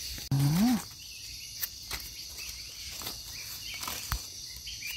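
Steady high drone of forest insects, with a few faint clicks and rustles of dry leaves as hands work in the leaf litter. Near the start a man's voice makes a short hum that rises in pitch.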